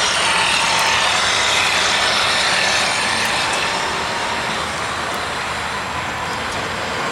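Electric RV patio awning motor running, a steady whir as the awning rolls out under power.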